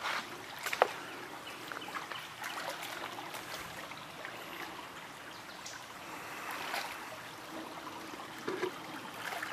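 Shallow rocky creek trickling over stones in a steady wash, with a couple of sharp clicks in the first second.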